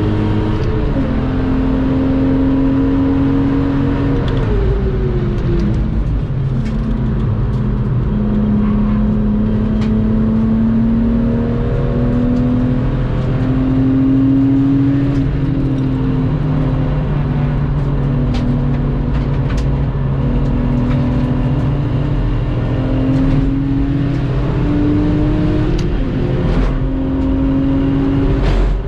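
Lexus IS200's engine under hard driving on a race circuit, its note climbing as it pulls and dropping at each gear change, with a long falling sweep about four to six seconds in as the car slows. Scattered faint clicks sit over the engine.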